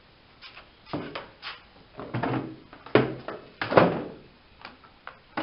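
Hard plastic ATV body panels being handled and set down: a series of knocks and clatters with short scraping rustles between them, the loudest about three and four seconds in.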